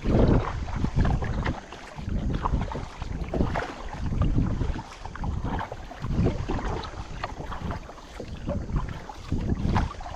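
Gusty wind buffeting the microphone, swelling and dropping every second or so.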